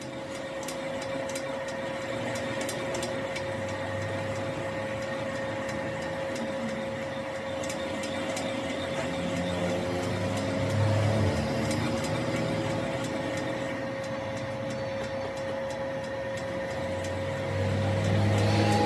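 Metal lathe running: a steady motor whine with scattered sharp ticks, and a low rumble that swells twice, about halfway through and near the end.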